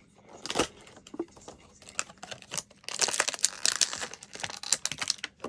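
Toy packaging being crinkled and torn open by hand: irregular crackling and rustling, busiest in the second half.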